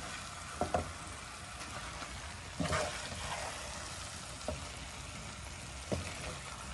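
Chow mein noodles with chicken and vegetables being stir-fried in a wok: a steady sizzle, with a short scrape or knock of the spatula against the pan every second or two as the noodles are tossed and mixed.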